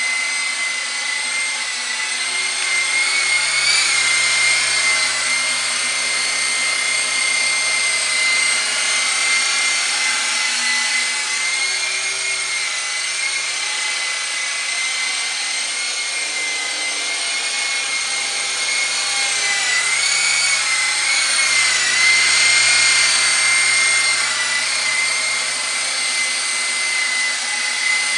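Black Shark toy RC helicopter in flight: a steady high whine from its electric motors and rotors, the pitch wavering and dipping now and then.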